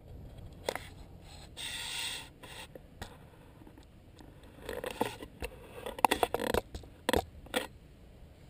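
Scraping and rubbing close to the microphone, with a rasp about two seconds in and a cluster of sharp knocks about five to seven and a half seconds in.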